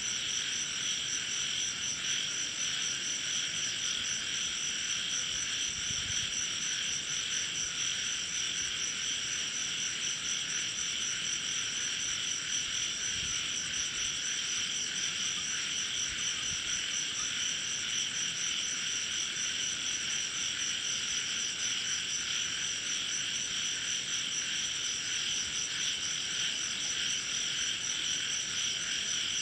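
Steady chorus of crickets and frogs, a continuous high trilling that never pauses.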